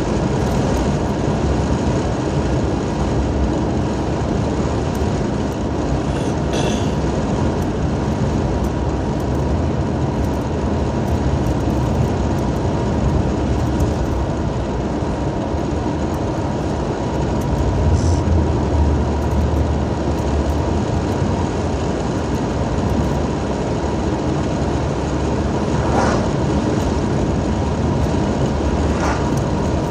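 Car driving along a paved road, heard from inside the cabin: a steady low rumble of engine and tyre noise, with a few faint knocks.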